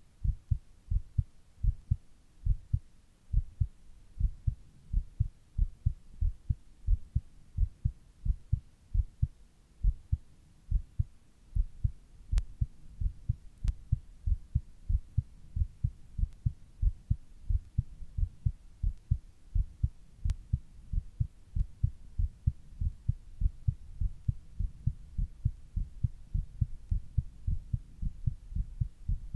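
A person's heartbeat beating fast: a quick, even run of low thumps.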